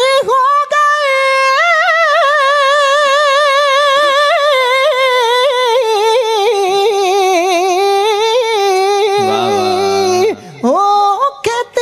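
A kavishri singer holding one long drawn-out note on a vowel with a wide vibrato, the voice alone with no instruments, sinking slowly in pitch and breaking off briefly near the end before the next note begins.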